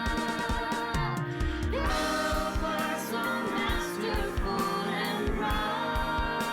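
Gospel-style worship song: voices singing together over a band with a steady drum beat.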